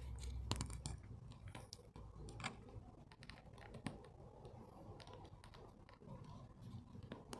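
Faint, scattered clicks and ticks over quiet room tone.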